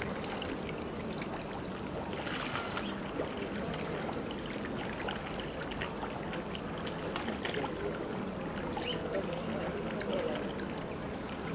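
A shoal of mullet splashing and churning the sea surface as they feed, with a louder splash about two seconds in. A steady low hum runs underneath.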